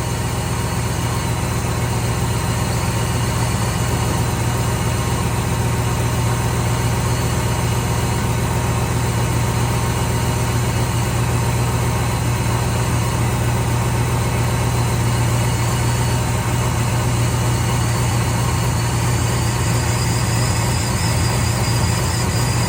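LS-swapped V8 in a 1978 Chevrolet Caprice Classic idling steadily, its no-start problem cleared for now.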